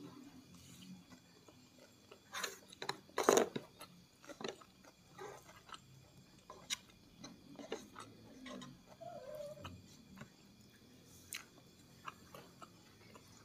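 Close-miked chewing of rice and fish eaten by hand: soft, wet mouth clicks and smacks coming irregularly, busiest about two to four seconds in and sparser after.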